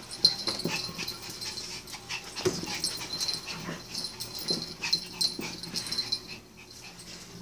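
A small dog tussling with a cat: scuffling and the dog's short breathy noises and brief cries, in irregular bursts that ease off about six seconds in.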